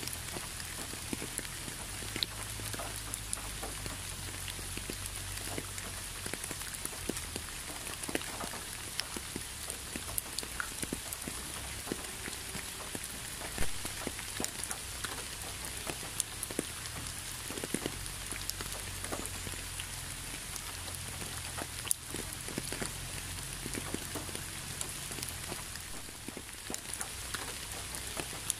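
Steady rain falling, with many individual drops tapping close by, a few of them sharper and louder than the rest.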